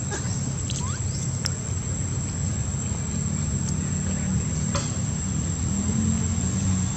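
Outdoor ambience: a steady low rumble like distant motor traffic, with a thin steady high insect drone and a few short chirps and clicks.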